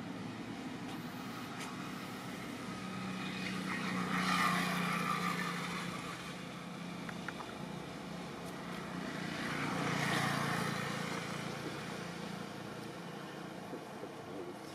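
Two motor vehicles passing on the road, each sound rising and fading over a few seconds, the first about four seconds in and the second about ten seconds in, over a steady background hum.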